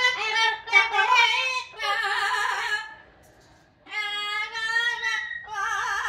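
Amazon parrot singing: loud, sustained, song-like notes, some wavering up and down, in two phrases with a short pause about three seconds in.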